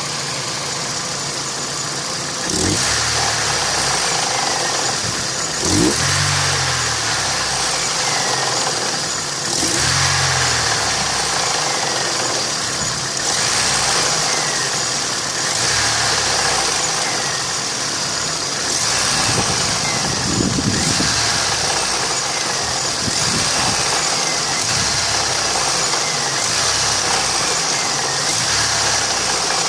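Daewoo A15SMS 1.5-litre four-cylinder petrol engine idling, blipped up in short revs several times, running with the knock the owner is demonstrating.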